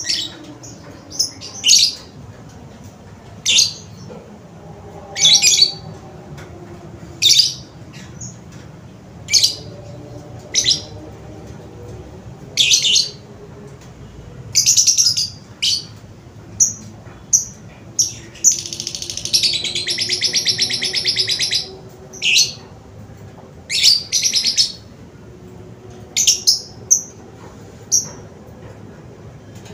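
A bird calling: loud, short, high chirps repeated every second or two, with a rapid buzzy trill lasting about three seconds near the middle.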